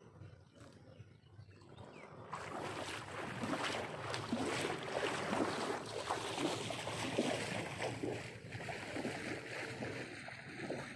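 Water splashing and sloshing in irregular bursts, starting about two seconds in.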